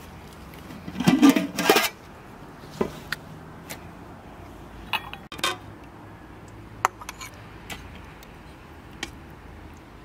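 Metal lid of a large stockpot lifted off with a loud clatter about a second in, followed by a ladle clinking several times against the pot and a bowl while soup is ladled out.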